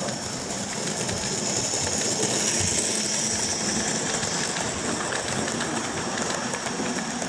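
Model railway steam locomotive and its train of coaches running past close by: a steady whir of the motor and a fast rattle of wheels on the track, loudest about two to three seconds in.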